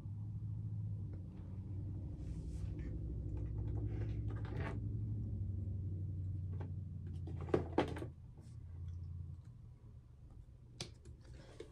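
A steady low hum with scattered light taps. Two sharp knocks come close together about seven and a half seconds in, the hum stops a couple of seconds later, and a single knock follows near the end.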